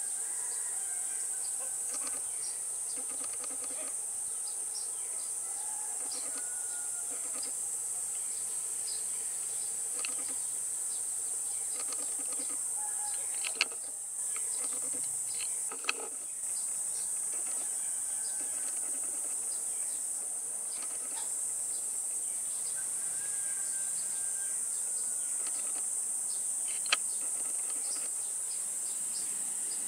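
Steady high-pitched insect drone with scattered bird chirps over it, and three sharp clicks. The departing airliner's engines are not clearly heard.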